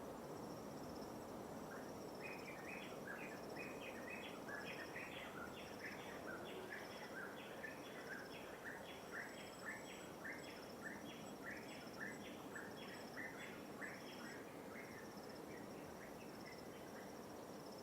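Light waves washing with a steady hiss, under a high insect trill pulsing about once a second. From about two seconds in, a bird calls a long run of quick repeated notes, a few a second, that fade out near the end.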